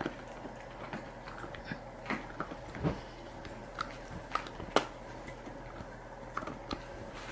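Corgi puppy chewing a snack, with irregular crunches and clicks of its teeth and one sharp, louder crunch about two-thirds of the way through.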